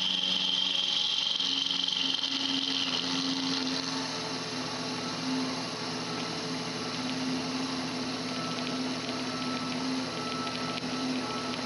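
Sherline milling machine running, its spindle motor humming steadily while the cutter roughs down a metal workpiece. A high whine sounds for the first three seconds or so and then fades.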